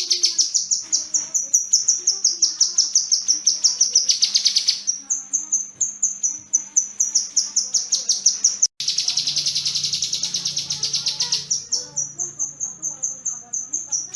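Kinoi songbird singing long runs of rapid, evenly repeated high-pitched notes, with a sudden break about two-thirds of the way through before the song starts again.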